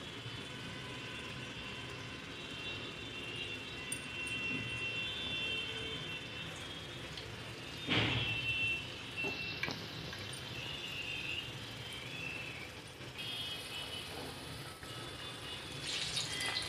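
Urad dal medu vadas deep-frying in hot oil in a kadai: a steady, gentle sizzle, with a single sharp knock about halfway through.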